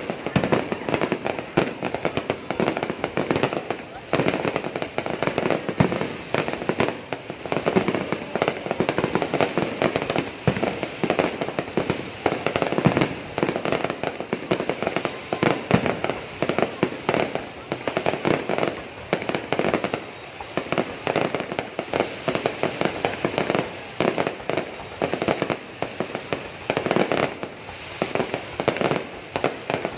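Aerial fireworks bursting in a dense, continuous barrage of bangs and crackles, with voices underneath.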